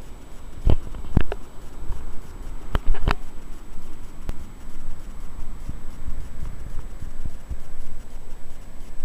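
Wind rumbling on the microphone of a handheld camera over the steady wash of surf on a sandy beach, with a handful of sharp knocks from the camera being handled in the first three seconds or so.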